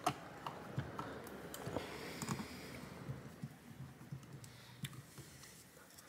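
Faint, irregular clicks and ticks of a small Phillips screwdriver tightening the screws that hold the cooler onto a graphics card.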